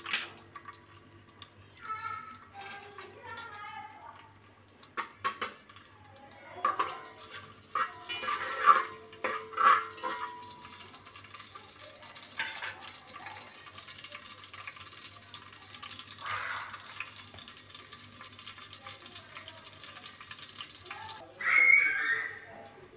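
Sliced onions and cumin seeds frying in hot oil in an aluminium pot: a steady sizzle that starts several seconds in and stops shortly before the end. A few knocks of a utensil on the pot come before the sizzle.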